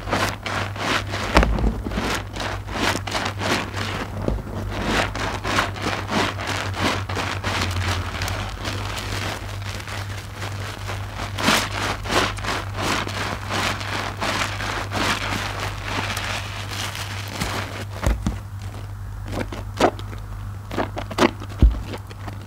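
Soapy IKEA mesh loofahs squeezed and kneaded by hand in a tub of suds: wet squelching with a dense crackle of bursting foam bubbles, thinning to fewer, separate squishes near the end.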